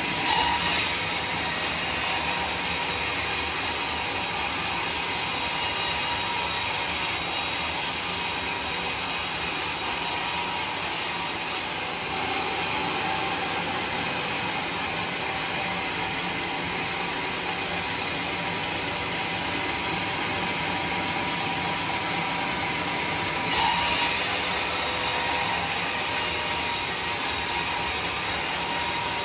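Band sawmill blade cutting lengthwise through a teak log, with the saw's motor running under a steady rushing of blade through wood. The sound changes abruptly twice, about 12 s and 24 s in.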